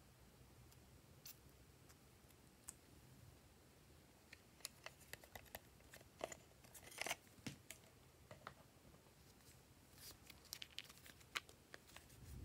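Faint scattered clicks and light crackles of plastic toys and glue tubes being handled, bunched in a cluster around the middle and another near the end.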